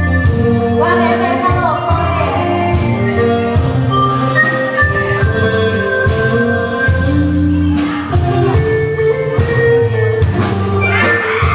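Live Thai luk thung band playing an instrumental passage: electronic organ or keyboard chords over a steady drum-kit beat, with brief vocal lines near the start and near the end.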